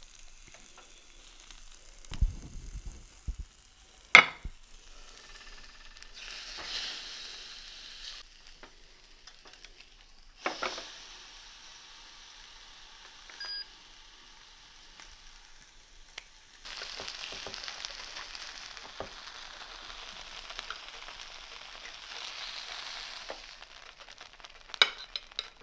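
Whole seasoned trout sizzling on an electric contact grill, in stretches of steady hiss broken by two sharp clicks.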